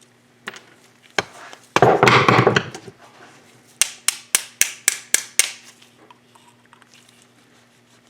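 Hand tools working on a small seized oil pump: a sharp knock, about a second of rattling clatter, then about seven sharp taps in quick succession at roughly four a second.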